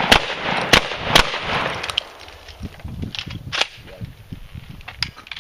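Shotgun firing: three loud shots about half a second apart in the first second and a half, followed by several fainter sharp knocks and cracks.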